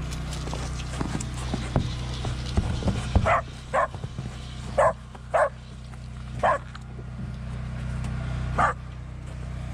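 A dog barking: six short barks spread over about five seconds, starting about three seconds in. Before them come a few light knocks.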